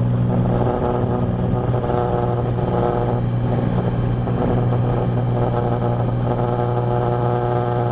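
Cessna 182 Skylane's piston engine and propeller at full takeoff power just after rotation, a steady drone with a strong low hum, heard inside the cockpit.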